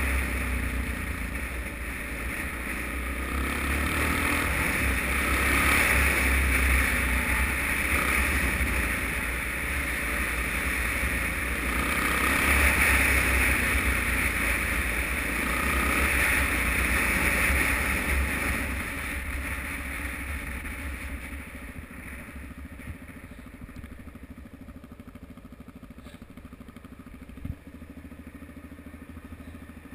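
Suzuki DR-Z single-cylinder motorcycle being ridden, the engine running under a steady rush of wind on the microphone. About two-thirds of the way through it slows and the sound drops to a quieter low-speed run, with one brief click near the end.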